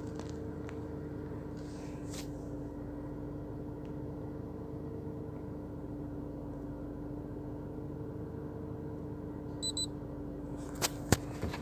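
A steady hum with two held tones runs throughout. Near the end comes a quick double electronic beep, followed by a couple of sharp clicks.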